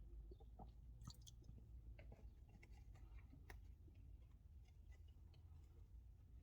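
Faint close-up chewing of a breadcrumb-coated Cumberland snack egg, with scattered soft crunchy clicks, over a low steady rumble.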